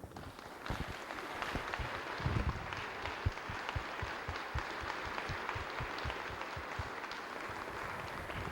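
Audience applauding, a steady mass of clapping that dies away at the end.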